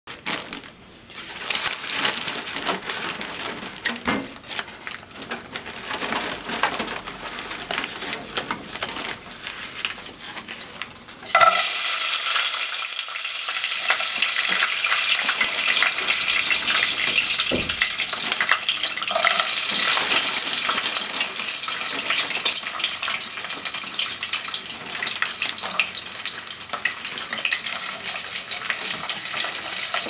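Newspaper wrapping crinkling and rustling as hands open it and fold it back around a baked sweet potato, louder from about eleven seconds in, with one soft knock in the middle.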